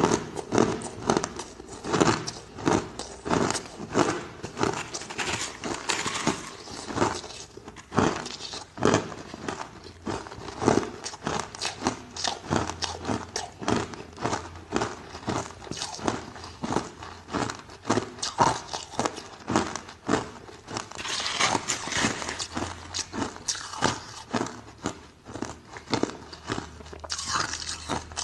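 Ice being bitten and chewed close to the microphone: a dense run of irregular crunches and cracks, several a second.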